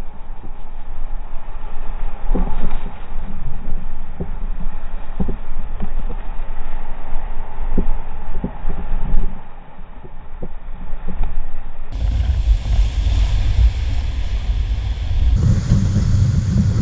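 Whitewater rapids rushing around an inflatable raft, with short sharp splashes and knocks of water and paddles against the boat. The sound is muffled for most of the first twelve seconds, then turns clearer, with a heavy low rumble of wind and water on the microphone.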